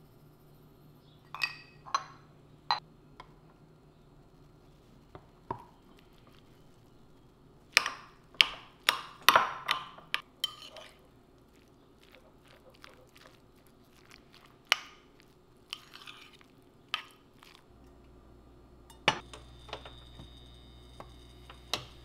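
A metal fork clinking and scraping against a ceramic bowl while mashing and mixing egg salad, in a dense run of clinks partway through and a few single taps before and after. Near the end a steady low hum with a faint high whine sets in, and bread slices knock softly into a stainless steel frying pan.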